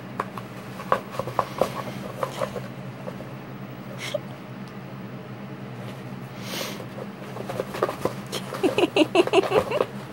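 Paper towels rustling and crinkling under a cat's claws and teeth as it paws and bites at the roll, with scattered small clicks, two brief swishes, and a rapid run of louder crinkling near the end.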